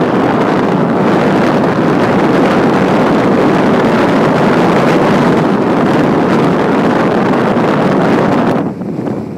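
Wind rushing over the microphone of a camera on a moving vehicle, a loud, steady roar that drops off sharply near the end.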